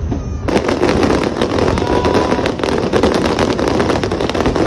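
Fireworks display: many shells bursting and crackling in rapid, dense succession, which starts abruptly about half a second in.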